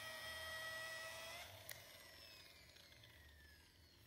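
Makita angle polisher with a felt polishing pad running with a steady whine; about a second and a half in, its pitch rises slightly, a click follows, and the whine falls away as the motor winds down.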